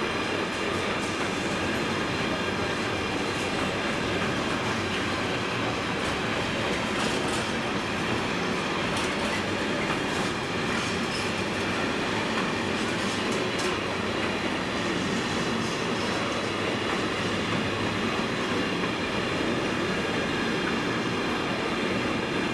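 Container flat wagons of a long intermodal freight train rolling past, a steady rolling noise of wheels on rails with a few sharp clicks from the wheels over rail joints.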